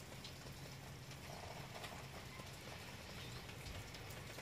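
Steady rain falling outdoors, with irregular drops tapping and ticking close by, over a low steady hum.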